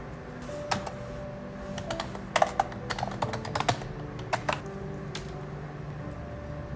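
Irregular light clicks and taps, about a dozen in short clusters, over soft background music with held notes.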